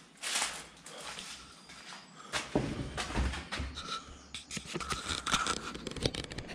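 Footsteps crunching and crackling over grit and debris on a concrete floor. From about two and a half seconds in, a low rumble joins a dense run of small clicks and crackles.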